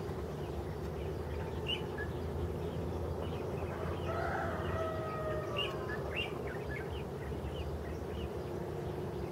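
Birds calling: small birds chirp on and off, and about four seconds in comes one longer, slightly falling call with several tones. A steady low rumble runs beneath them.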